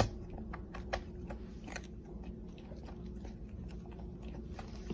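A pet crunching dry kibble from a bowl: irregular crisp crunches a few times a second, over a low steady hum.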